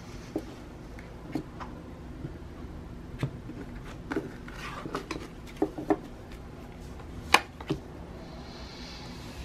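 Tarot cards being handled and laid on a table for a draw: scattered light taps and clicks, the sharpest about seven seconds in, and a short sliding rustle near the end.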